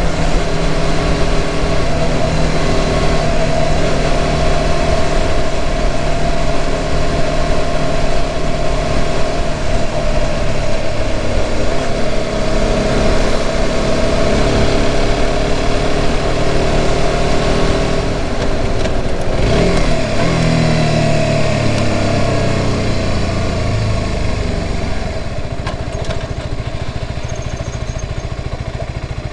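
Motorcycle engine running under way, holding a steady note for most of the stretch. About two-thirds of the way through, the pitch drops as the bike slows, and the engine runs lower and quieter near the end.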